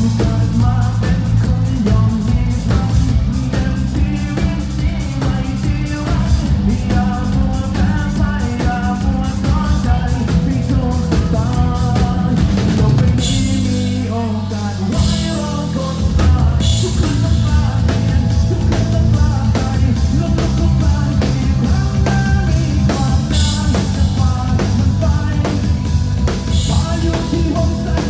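Rock band playing live, a drum kit driving a steady beat under bass and guitars, with some singing. About 13 seconds in the band drops into a short break marked by cymbal crashes, then the full beat comes back about three seconds later.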